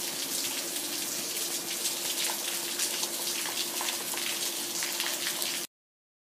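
Monsoon rain falling steadily, a dense hiss full of close drop hits, with a faint steady hum underneath. The sound cuts off abruptly near the end.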